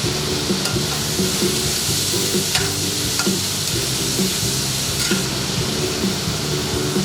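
Chicken and shiitake mushrooms sizzling in hot oil as they are stir-fried, a steady frying hiss with a few light clicks of the spatula against the pan.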